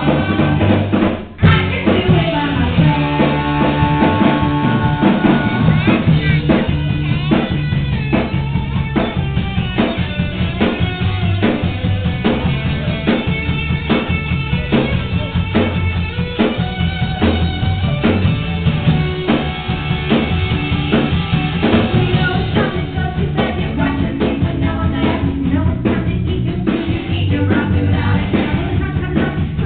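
Live rock band with a female lead singer, drum kit and guitars, playing a song and heard from the audience. There is a short dropout and click about a second in.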